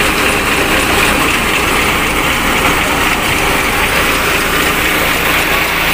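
Tractor-powered wheat thresher running, belt-driven from the tractor: a loud, steady mechanical din of the threshing machine mixed with the tractor engine.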